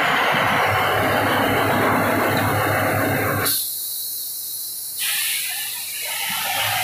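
Borewell drilling rig running: its turbocharged diesel engine drones steadily under a loud, constant hiss of air. About halfway through the sound briefly goes thinner and quieter, then returns.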